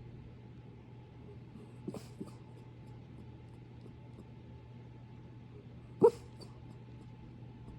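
Sleeping puppy making short sleep noises: two faint brief sounds about two seconds in, and a single louder, sharp pitched one about six seconds in.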